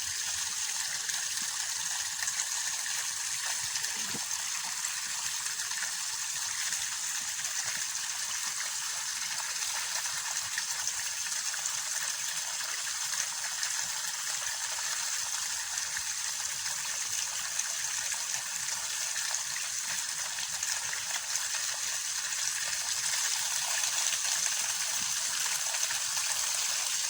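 Water gushing and spraying steadily from a broken T fitting on a pressurised irrigation line.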